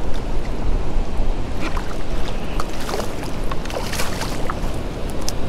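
Wind buffeting the microphone over lapping shallow water. A hooked flounder thrashes and splashes as it is scooped into a landing net, with a run of quick splashes from about a second and a half in to past the middle.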